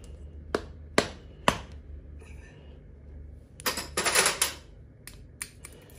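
Small metal parts and tools of an air rifle valve being handled: three sharp clicks about half a second apart, a quick rattle of clicks about four seconds in, then a few single clicks.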